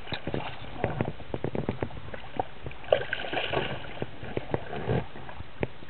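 Water splashing and slapping against the side of a small boat in irregular short splashes and knocks, as a hooked silver (coho) salmon is worked at the surface alongside.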